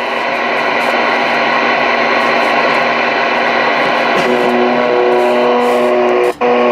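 Stryker SR-655HPC radio's speaker giving loud, steady receiver static on CB channel 19. About four seconds in, a steady buzzing tone comes up through the hiss. Near the end the sound cuts out for a moment as the channel knob is turned.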